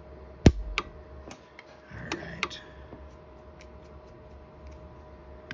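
Orion 150s pulse arc micro welder firing single weld pulses onto a silver ring, each pulse a sharp snap: the loudest about half a second in, several more over the next two seconds, then fainter ticks about every half second.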